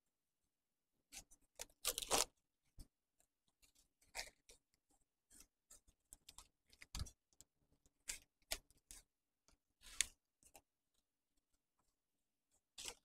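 Soft, scattered rustling and crinkling of wrapping paper and organza ribbon being handled as a ribbon is tied around a wrapped bouquet, with sharper crackles about two, seven and ten seconds in.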